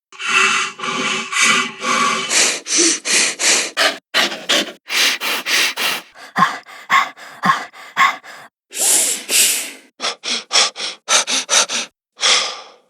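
A run of short, breathy horror sound effects, gasps and sharp breaths, one after another with brief gaps between them.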